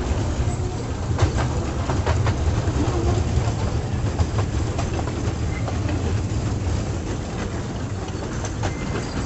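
Mini toy train running along its small track: a steady low rumble of the moving ride with irregular sharp clicks of the wheels over the rails.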